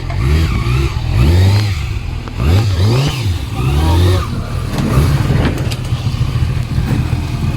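Kawasaki Ninja ZX-6R's inline-four engine revved in repeated throttle blips, its pitch rising and falling several times.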